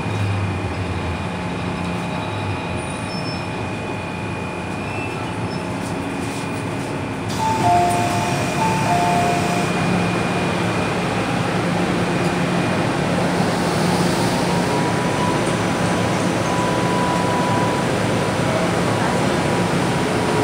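Hong Kong MTR M-Train electric multiple unit running through the tunnel with a steady rumble, heard from inside the car. It grows louder about seven seconds in as it pulls into Lai Chi Kok station, and a thin steady whine comes in over the second half as it brakes to a stop.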